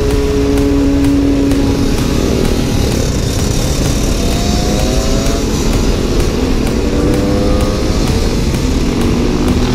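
Husaberg FE 550 single-cylinder four-stroke supermoto engine running under way. It holds a steady note for the first couple of seconds, then rises in pitch several times as it accelerates, over heavy wind rush on the microphone.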